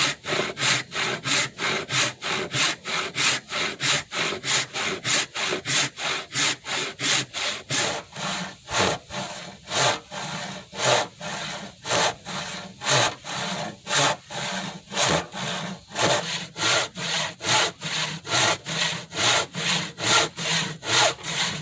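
Handsaw cutting through a wooden rail in steady back-and-forth strokes, about three a second, sawing down between two marked lines like a tenon cut.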